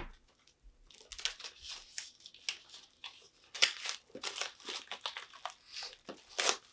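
Plastic shrink-wrap being torn and peeled off a Blu-ray steelbook case, crinkling in irregular crackles, a few of them sharper.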